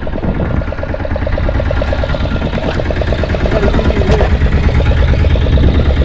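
A small fishing boat's engine idling with a fast, even beat, over a steady low rumble.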